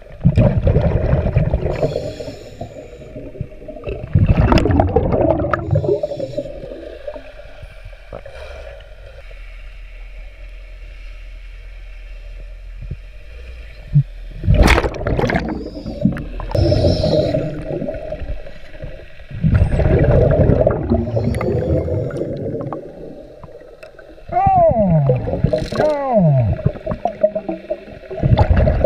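Scuba diver breathing through a regulator underwater: bursts of bubbling, gurgling exhalation come every few seconds, with quieter stretches between them and a sharp knock about halfway through.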